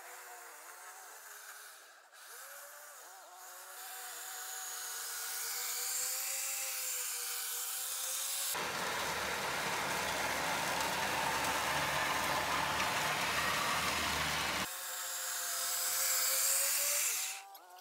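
Craftsman GTV/16 garden tractor converted to a 48-volt battery electric motor driving past, with a light whine whose pitch wavers with speed. For about six seconds in the middle a louder rush of noise starts and stops abruptly as it passes close, and the whine fades out near the end.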